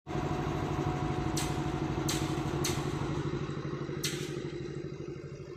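Diesel engine of a railway overhead-line inspection tower car running steadily as the car moves slowly past, easing off in loudness near the end. Four sharp clicks sound over it.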